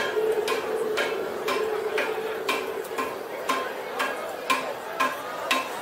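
Rhythmic striking, about two knocks a second, each with a short ringing tone, over the hubbub of a busy street-food crowd.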